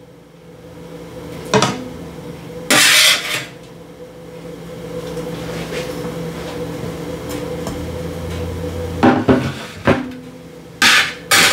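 Metal spatula knocking and scraping against a metal sheet pan and skillet as patties are moved into gravy: a single knock, a longer scrape a moment later, then a few quick clanks near the end. A steady low hum runs underneath.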